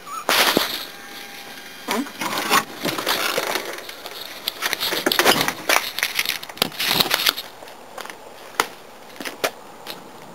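Camera handling noise: irregular rubbing, crackling and knocks as the camera is carried and moved, then a few sharp clicks as it settles.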